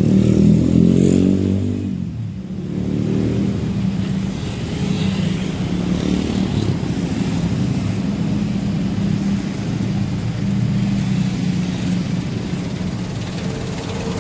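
Motorcycle and car engines of slow-moving queued traffic. A louder engine slides in pitch for the first two seconds and then drops away, and a steady engine hum continues after it.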